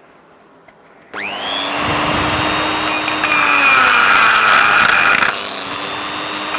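TIG arc from an R-Tech 261 AC/DC inverter welder, struck suddenly about a second in and burning with a steady, buzzing hiss while tacking a cast iron gearbox with silicon bronze. It drops to a lower level near the end.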